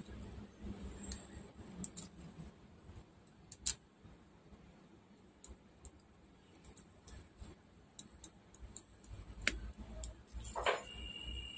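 Small flush cutters snipping and clicking against the plastic housing of a disassembled Bose SoundLink Revolve+ speaker, with sporadic small clicks. There is one sharper click about four seconds in, and a short scrape shortly before the end.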